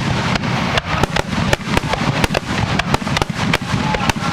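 Fireworks finale: a dense run of sharp bangs and crackles, several a second at irregular spacing, over a continuous low rumble.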